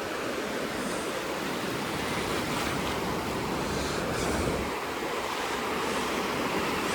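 Pacific Ocean surf washing up the beach: a steady rush of breaking waves that swells gently every few seconds.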